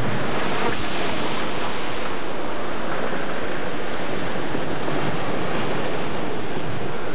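Storm wind and heavy seas breaking over a crab boat's deck: a loud, steady rush of wind and water spray.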